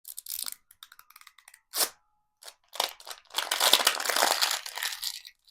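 Packaging being torn open and crinkled by hand: scattered sharp crackles, then a longer stretch of tearing and rustling from about three to five seconds in.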